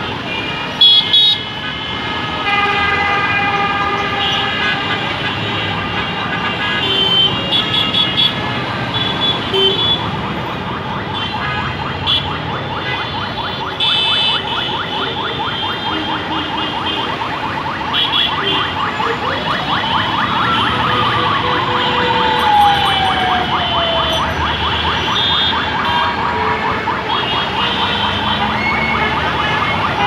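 Dense city traffic: engines running and many vehicle horns honking over and over. About twenty seconds in, a siren-like tone rises and then falls slowly.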